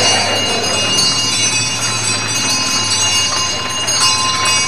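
Small bells jingling steadily over the general noise of a crowd walking along the street.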